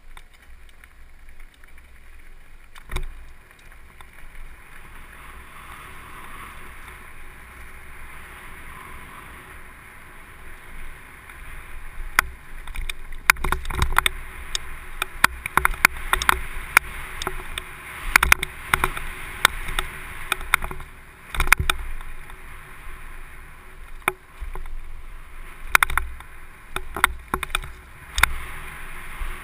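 Downhill mountain bike rolling fast over gravel and dirt, with a steady rush of tyre and wind noise. From about twelve seconds in come frequent sharp clacks, knocks and rattles as the bike hits rough ground.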